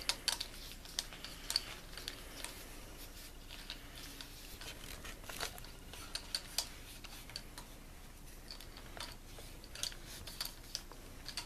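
Scattered light clicks and soft rubbing of a cylinder hone's stones being handled and coated with oil by hand.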